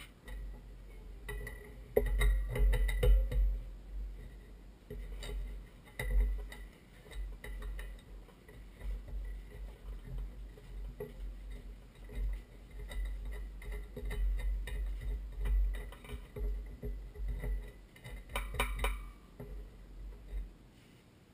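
Scattered small clinks, clicks and knocks from hands working wires and metal fittings at a well-pump pressure switch, with low bumps and rustling close to the microphone.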